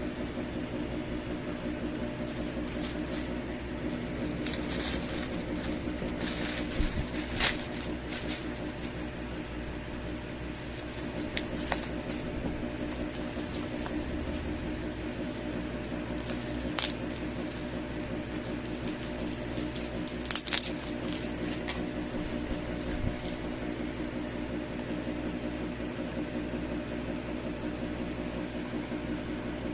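Steady low mechanical hum, with a few sharp clicks and rustles from fabric paint packaging being handled during unboxing.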